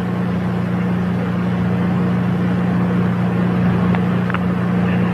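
Steady low hum with a constant tone and an even hiss on an archival launch-control commentary feed, in a gap between callouts.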